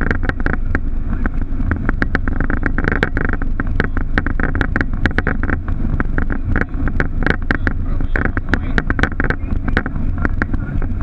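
Boeing 737 flight deck noise: a steady, loud drone with frequent irregular rattles and knocks throughout.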